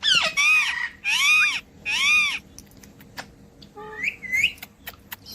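Pet parrot calling: four loud arched squawks in quick succession, then two fainter rising calls about four seconds in.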